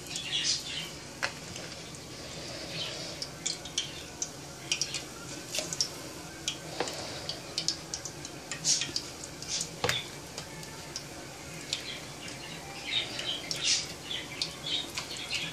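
Battered chicken pieces deep-frying in a pot of hot oil: steady sizzling with many small crackles and pops. A few sharper knocks stand out, about a second in, then near seven and ten seconds.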